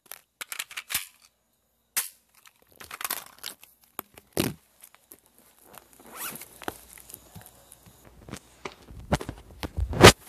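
Close handling noise: rustling and crinkling with scattered clicks and knocks, a sharp knock just before the end being the loudest.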